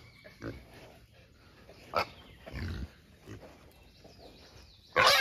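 Trapped wild hogs grunting in a cage trap, with a sharp crack about two seconds in and a sudden loud burst of noise at the very end.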